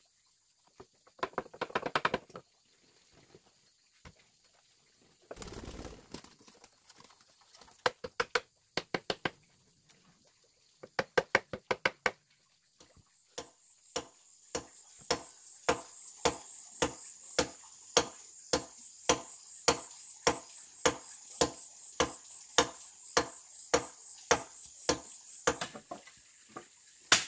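Hand tool striking wood in repeated sharp knocks: scattered clusters at first, then from about halfway a steady run of strikes roughly a second apart with lighter taps between, over a faint steady high hiss.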